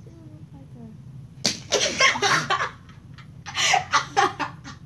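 A sudden smack about a second and a half in, as the water-bottle prank goes off and splashes one girl, then girls' shrieking laughter in two loud bursts.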